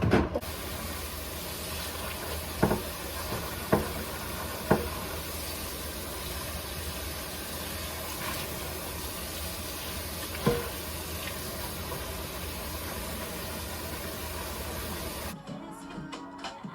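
A steady rushing hiss with a low hum, broken by a few sharp knocks, the first about three seconds in and one about ten seconds in; it cuts off abruptly near the end.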